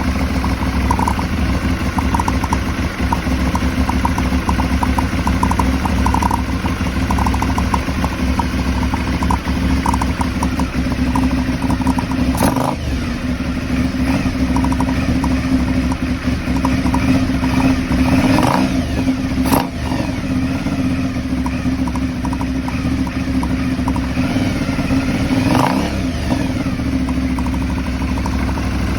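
Aprilia Shiver 750's V-twin engine idling roughly, which the owner suspects is a throttle body problem. There are a few brief changes in the sound about twelve, nineteen and twenty-six seconds in.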